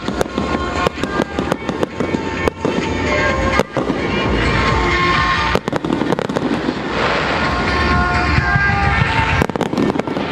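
Aerial fireworks bursting and crackling, many sharp bangs in quick succession, with music playing underneath.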